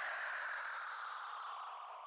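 The end of an electronic background music track: a hissing sweep that glides steadily down in pitch and fades away.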